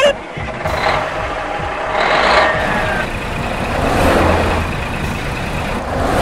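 Sound effect of a large truck's engine running steadily, a rumbling, hissing drone.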